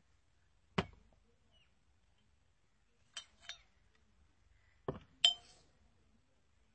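Small glass bottles set down one at a time on a table, knocking and clinking against it and against each other: five sharp clinks spread over the few seconds, the loudest near the end with a brief glassy ring.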